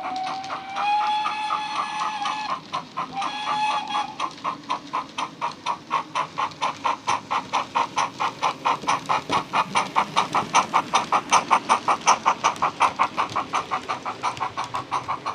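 Steam locomotive sound from the DCC sound decoder of a Bachmann model of GWR 4-4-0 'City of Truro', played through a small speaker in the tender. It gives a long whistle blast, then a short one, over steady exhaust chuffs that quicken as the model picks up speed.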